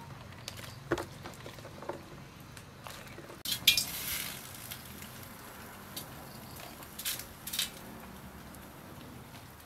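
Chopped vegetables tipped from a plastic basket into a metal soup pot: scattered light clinks and knocks, with a short loud clatter about three and a half seconds in as the load tumbles in.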